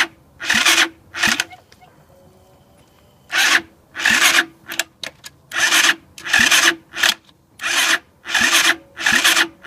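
2007 Roketa 260cc ATV engine being cranked by its electric starter without catching: rasping bursts come about one and a half times a second, with a pause about one and a half seconds in before the cranking resumes. The engine turns over but will not fire, a start fault the owner cannot trace and has tried to cure with a different carburetor and starter fluid.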